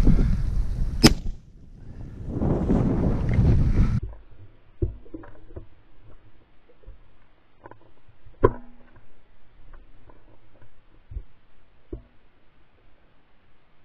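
Strong wind buffeting the microphone, with a sharp click about a second in. About four seconds in the wind cuts off suddenly, leaving only faint scattered knocks and rustles, with one sharper knock about halfway through.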